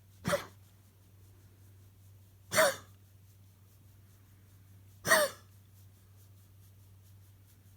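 A dog coughing in short, sharp hacks, three of them about two and a half seconds apart with a fourth starting right at the end, in what the owner takes for a mild coughing fit.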